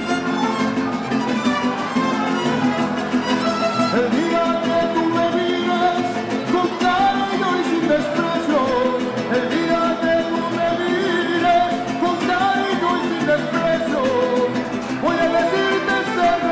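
Mariachi band playing, violins carrying the melody over strummed guitars.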